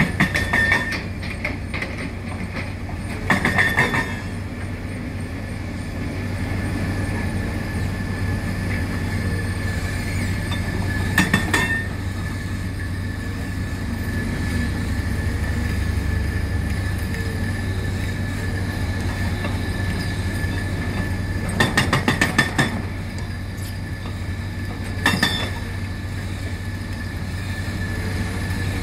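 Diesel engines of crawler excavators running steadily under load. Over them, an Atlas Copco hydraulic hammer breaks concrete in short bursts of rapid metallic blows, about five bursts of roughly a second each.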